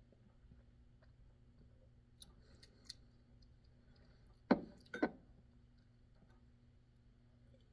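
Two sharp knocks about half a second apart: a glass Glencairn whisky glass set down on a wooden table, after a few faint clicks.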